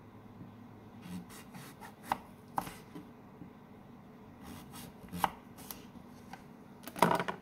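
Kitchen knife slicing a cucumber into rounds on a wooden cutting board: sharp knocks as the blade cuts through and strikes the board. They come in two short, irregular runs after about a second, with the loudest cluster of knocks near the end.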